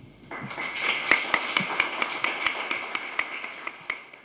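Audience applauding, starting a moment in and dying away near the end.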